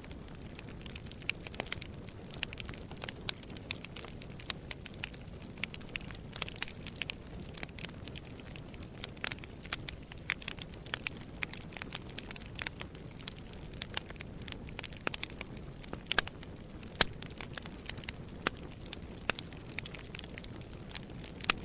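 Wood fire burning in a fireplace, crackling with irregular sharp pops and snaps over a low, steady rush of flame.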